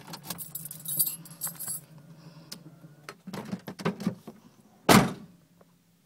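Car keys jangling and clicking at the ignition as the car is switched off, with scattered clicks and rustles, then one loud thump about five seconds in.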